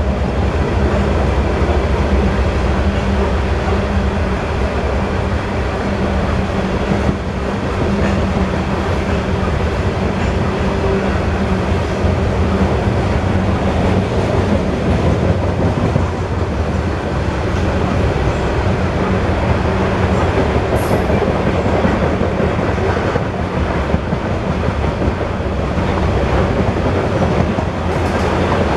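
Coal hopper cars of a BNSF freight train rolling past: a steady, low rumble of steel wheels on the rails.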